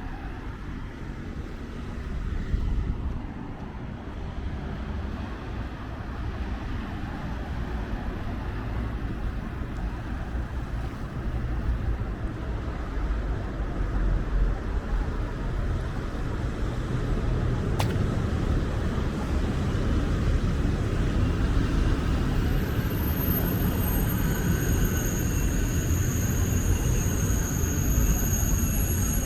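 Gusty wind rumbling on the microphone over city street traffic, slowly growing louder. A high, steady squeal of several tones comes in near the end.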